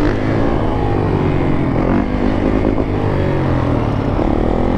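Yamaha YZ450F's single-cylinder four-stroke engine running as the bike is ridden slowly, its revs rising and falling with the throttle.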